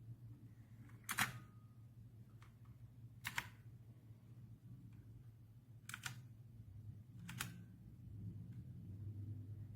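Single keys or buttons pressed one at a time on a mechanical keyboard with clicky blue switches: four separate sharp clicks a second or two apart, over a low steady hum.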